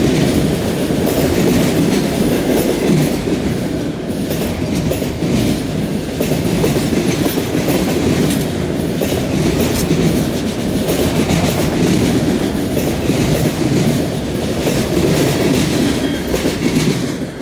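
Freight train cars rolling past at steady speed: a continuous rumble of wheels on rail with repeated clickety-clack of wheels striking rail joints.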